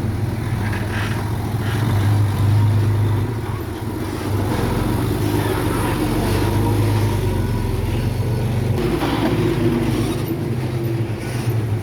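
Heavy diesel engine of earthmoving equipment running steadily under load, its low hum rising and falling a little.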